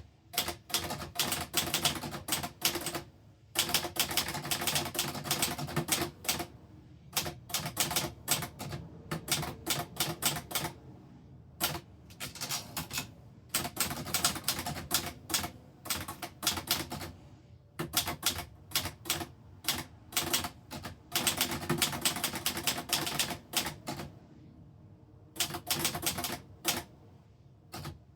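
1971 Underwood 330 typewriter being typed on: runs of rapid key strikes broken by short pauses, the longest about a second and a half near the end.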